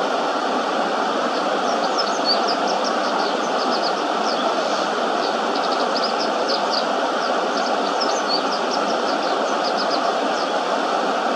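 Japanese wagtail singing a complex song of short, high twittering notes, coming in runs from a couple of seconds in and again in the middle, over a steady rush of flowing shallow river water.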